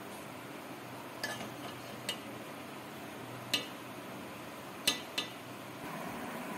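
Steel serving spoon clinking against a ceramic plate about five times while rice is served, over a steady faint hiss.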